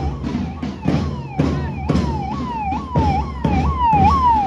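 Ambulance siren wailing in quick repeated sweeps, about two a second, growing louder near the end as the ambulance comes closer. Regular drum beats keep time underneath.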